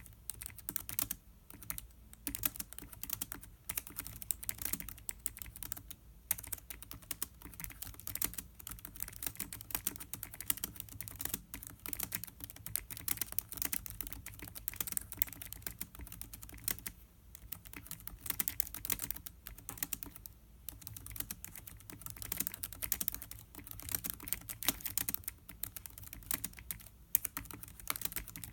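Typing on a Lenovo ThinkPad X1 Carbon 2016 laptop keyboard: rapid, continuous key clicks with a few brief pauses.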